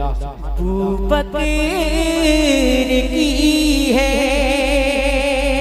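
A man singing a naat (devotional Urdu poem in praise of the Prophet) into a microphone, drawing out long held notes with a wavering vibrato.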